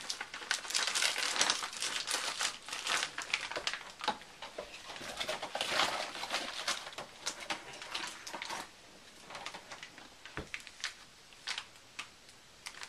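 Packaging crinkling and rustling as kit items are handled and set down, busy for the first eight or nine seconds, then thinning to scattered light clicks and taps.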